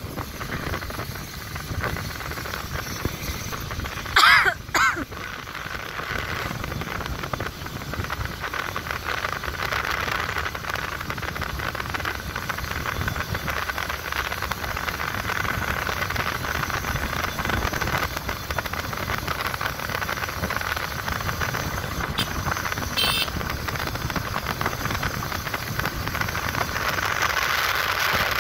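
Steady wind and road noise of a motorbike ride, with the bike's engine running underneath. About four seconds in there is a short, loud wavering tone.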